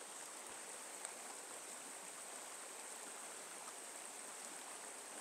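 Steady flow of a small trout stream running through a riffle.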